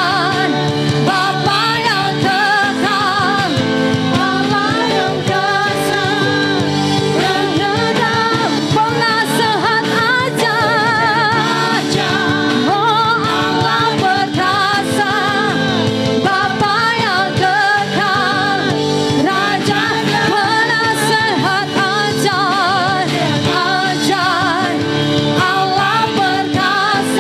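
Worship song sung with vibrato over a steady instrumental accompaniment.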